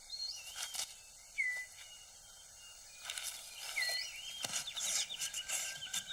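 Rainforest ambience: a bird's short whistled notes, each a quick slur, repeat several times over light rustling and clicking of leaves and twigs, which come thickest in the second half as the six-plumed bird of paradise clears debris from his display ground. A thin steady insect tone starts near the end.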